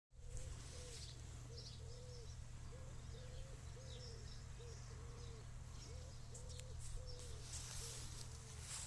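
Birds calling: a long run of low, short, arched calls repeating about once or twice a second, with scattered high chirps, over a low steady rumble.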